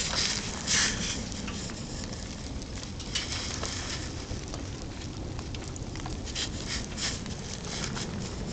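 Fire crackling inside a metal burn barrel: scattered sharp crackles and pops over a steady low rumble.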